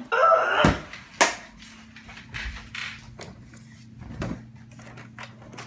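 Blanket rustling and two sharp knocks about a second in as a person throws off bedcovers and climbs out of bed, then softer shuffling and light knocks over a steady low hum.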